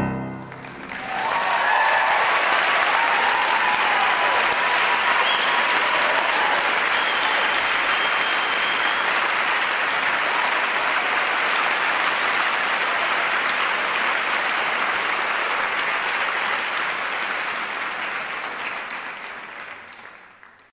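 Audience applause that swells up about a second in, holds steady, and fades out near the end.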